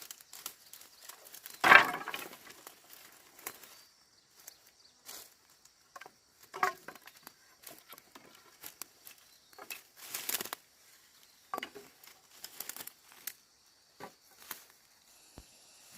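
Irregular rustling, crinkling and scraping of things being handled, broken by sharp knocks; the loudest knock comes about two seconds in, and a short hissing swish comes about ten seconds in.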